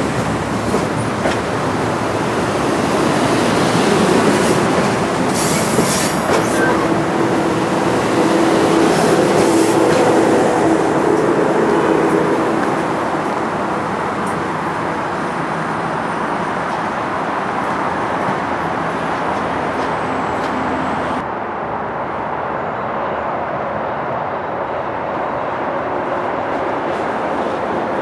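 Metro-North electric multiple-unit commuter train moving along the track, with wheel and rail noise and a steady pitched hum. It is loudest in the first half, then eases off.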